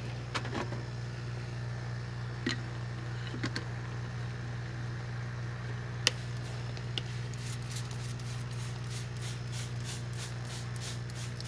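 Steady electric hum of the air pump feeding the froth flotation cell, with a few scattered clicks and knocks. Near the end comes a quick run of short hissy ticks, about three or four a second.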